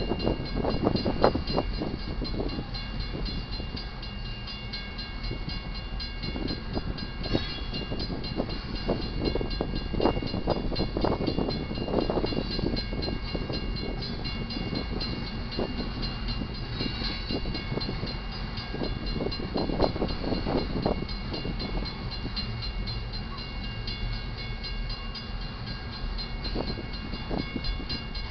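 Loaded freight train cars rolling past, with a steady low rumble and wheels knocking irregularly over the rail joints and crossing.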